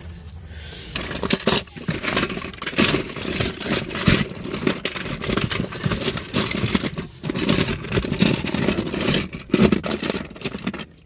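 Diecast toy cars clattering and scraping against one another and the plastic tub as a hand rummages through the pile, starting about a second in.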